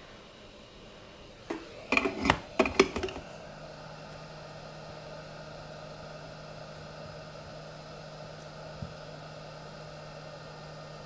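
A quick run of hard knocks and clatters as tools are picked up and set down on a silicone work mat. Then a steady mechanical hum with a low drone runs on, with one small click near the end.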